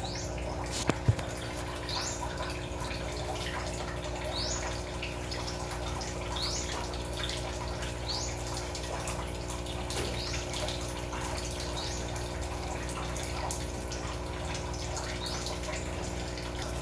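Water running and dripping from the tap of a bottle brine-shrimp hatcher into a net sieve as the hatched baby brine shrimp are drained off and strained. Under it is a steady low hum, and a short rising high chirp repeats about every two seconds.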